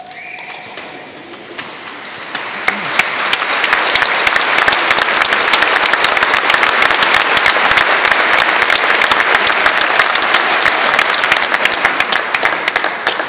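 Large audience applauding, swelling to full strength a couple of seconds in and starting to die away near the end.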